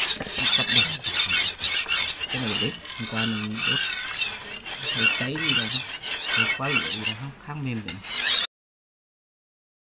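Steel knife blade being sharpened by hand on a wet whetstone: quick back-and-forth strokes, each a rasping scrape. It cuts off suddenly about eight and a half seconds in.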